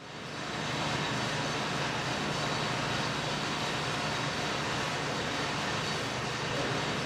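Welding-electrode production-line machinery running with a steady mechanical noise and a low hum, fading in from silence at the start.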